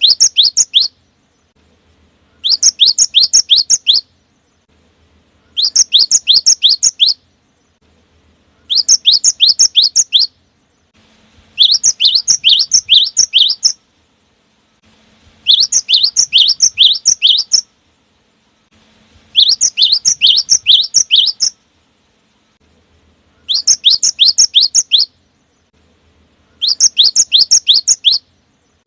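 Cinereous tit (gelatik batu) singing in rapid bursts: each burst is a quick run of six to eight sharp, high notes lasting under two seconds, repeated about every three to four seconds with short silences between.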